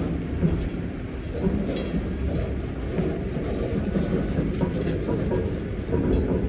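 Steady low rumble of a loaded centerbeam flatcar rolling slowly along the track, with faint clicks from the wheels and rails.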